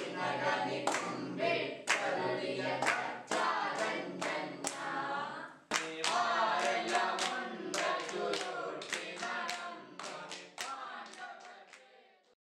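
A group of voices singing in unison, punctuated by sharp hand claps, fading out toward the end.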